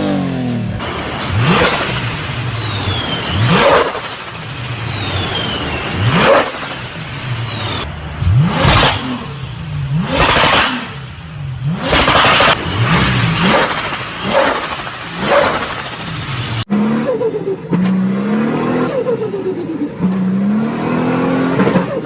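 Turbocharged car engine revved repeatedly. On each lift-off a high turbo whistle falls away, with sharp bursts from the blow-off valve. About two-thirds of the way through, it cuts to another turbo engine being blipped up and down in quicker revs.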